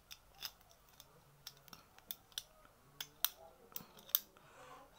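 Steel padlock being handled in the fingers: a dozen or so small, sharp metallic clicks at irregular intervals, the loudest a little after three seconds and again about four seconds in.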